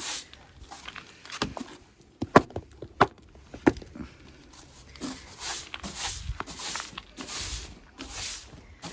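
A few sharp knocks, then gritty scuffing footsteps about twice a second.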